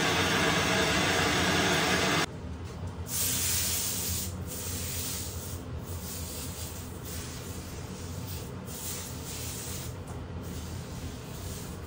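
Handheld gas torch flame running steadily, cut off suddenly about two seconds in. It is followed by a rag wiping the hot, freshly soldered copper-to-brass joint: a hiss with a series of short brushing strokes.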